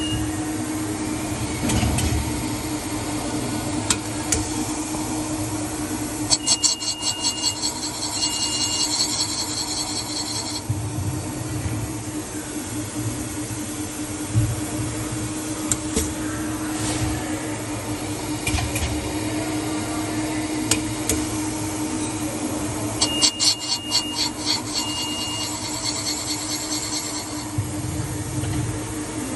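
Valve seat cutting machine running with a steady hum, its cutter scraping against a valve seat in an aluminium cylinder head. Twice there is a stretch of rapid high ticking with short high beeps.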